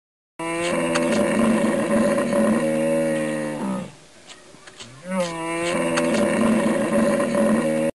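Cow mooing: two long calls of about three seconds each, with a short break between them.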